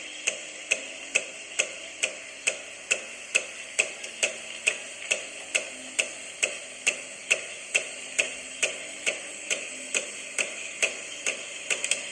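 Coffee machine's steam function running into a cup of milk: a steady faint hiss with a sharp, regular click a little more than twice a second.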